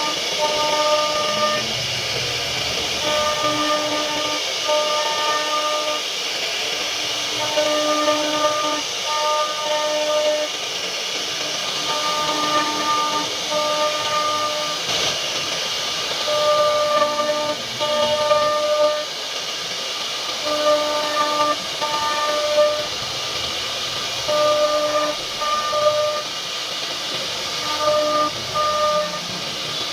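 CNC router carving wood, with a steady high hiss from the spindle and cutting. A whining tone cuts in and out every second or so as the machine moves.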